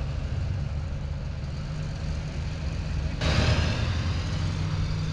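Chevrolet Silverado Duramax diesel pickups rolling past at low speed, engines running with a steady low drone. A sudden louder rush of noise comes in about three seconds in and fades over about a second.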